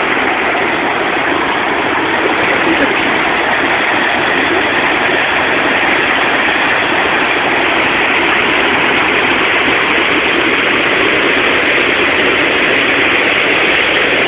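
Water rushing over a river weir: a loud, steady rush of falling water.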